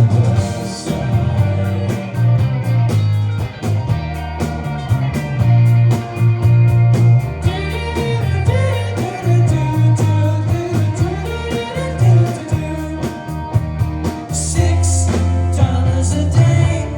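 Live rock band playing with a sung vocal line, over a steady drum beat and a strong bass line.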